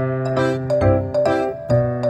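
Background music: a keyboard tune with notes struck at an even pace, about two or three a second.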